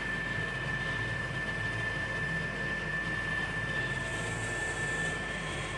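Lit forge running steadily: an even rushing noise over a low hum, with a thin constant high whine.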